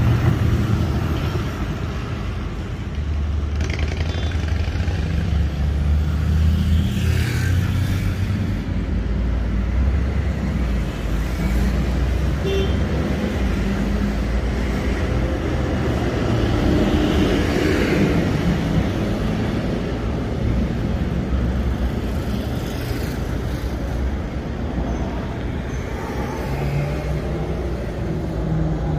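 Street traffic noise: vehicle engines running and passing by, a steady low rumble that swells and fades as vehicles go past.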